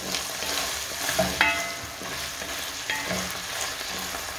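Ground meat and chopped vegetables sizzling in a nonstick pot while a wooden spatula stirs and scrapes through them, with a couple of short ringing knocks of the spatula against the pot about a second and a half and three seconds in.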